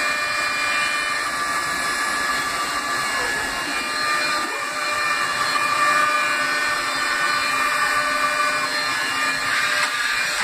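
2007 Haas SL-30 CNC lathe running with its chuck spinning free. It makes a steady machine whine, several held pitches over a noise.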